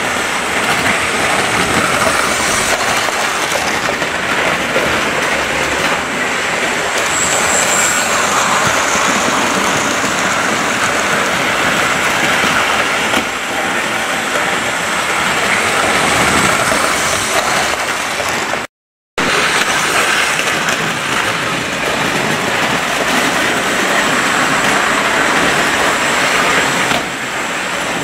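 Model train locomotives running round the layout: a steady whirring rumble of electric motors and metal wheels on the track. It drops out completely for a split second partway through.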